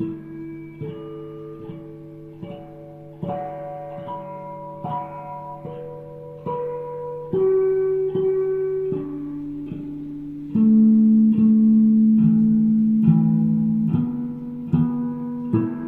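Music: a slow melody of plucked-string notes, about one a second, over held low notes, growing louder about two-thirds of the way through.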